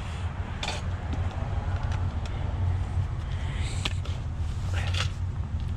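A vehicle engine running steadily with a low hum, with a few short clicks and knocks of items being handled.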